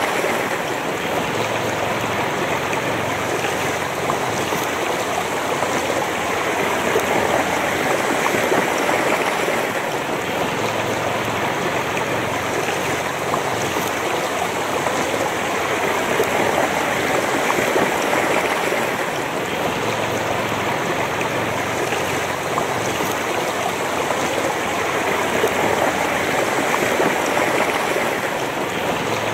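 Shallow river running over rocks and stones, with a steady rush and babble of water that swells and eases gently.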